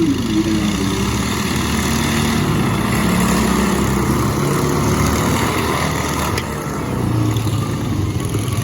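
Small engines of racing lawn mowers running, their pitch shifting slightly as they go.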